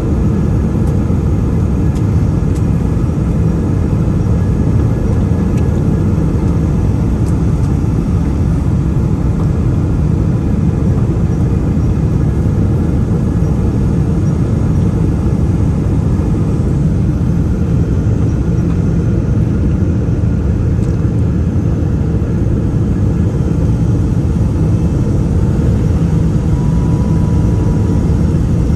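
Boeing 777-300 airliner on its landing approach: a loud, steady, low rumble of its jet engines and rushing air, with no change through the stretch.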